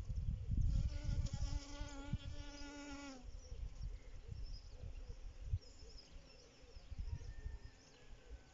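A honeybee buzzing in flight close to the microphone, a wavering hum that starts about a second in and stops about three seconds in. Low wind rumble on the microphone runs underneath.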